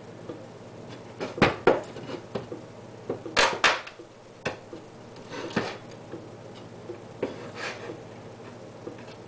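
Heavy meat cleaver chopping through chicken wings onto a wooden cutting board: a few irregular knocks, the loudest about a second and a half in and about three and a half seconds in.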